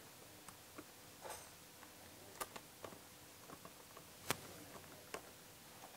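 Faint, scattered light clicks and taps of small hardware being handled: bolts being set by hand through a plastic number plate into its bracket, with one sharper click about four seconds in.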